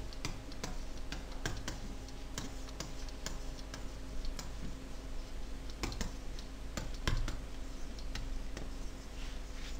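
Irregular light clicks and taps of a stylus on a writing surface during handwriting, over a steady low electrical hum.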